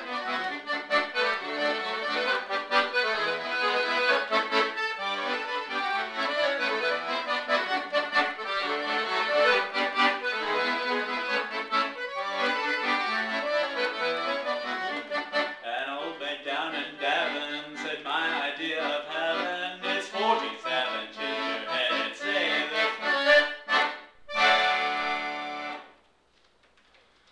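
Solo accordion playing the closing bars of a song, melody over chords, finishing on a single held chord that stops abruptly near the end.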